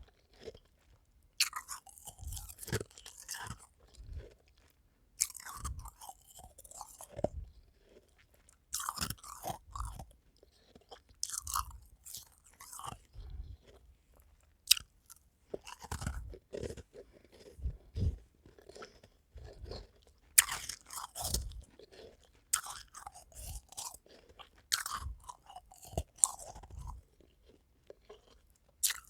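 Close-up crunching and chewing of frosty half-moon ice cubes, bite after bite in short bursts with brief pauses.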